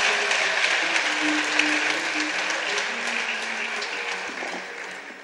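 Audience applauding, the clapping slowly fading away toward the end.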